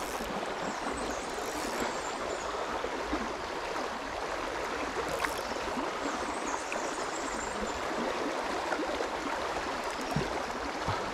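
River water running steadily, an even babble of flowing current.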